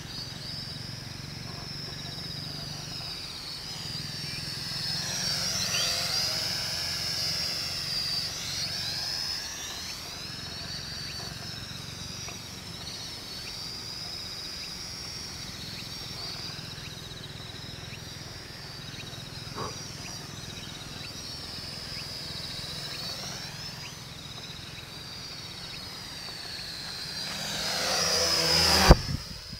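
Toy quadcopter's electric motors and propellers whining in flight, the pitch wavering up and down as the throttle changes. The owner suspects the motors are worn and losing lift. It grows louder near the end, with a sharp knock just before the end.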